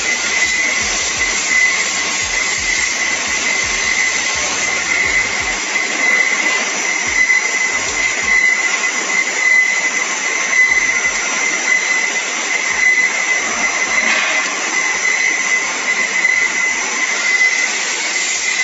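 Welding-wire rewinding machine running, winding wire onto a spool: a steady hiss with a high whine held on one pitch.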